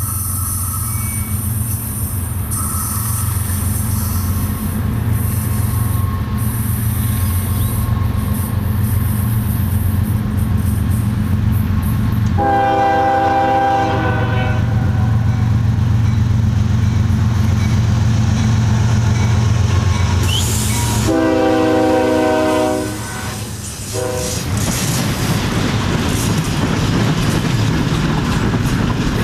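A CSX GE diesel locomotive drones as it approaches at the head of a container train and sounds its air horn in two long blasts and one short one. The stack cars then rumble and clack past over the rails.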